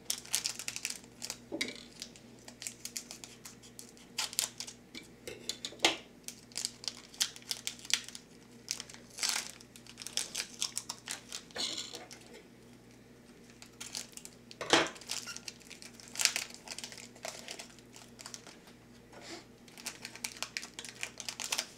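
Wrapper of a 2010-11 Ultimate hockey card pack being torn open and crinkled by hand, in irregular sharp rustles with short pauses.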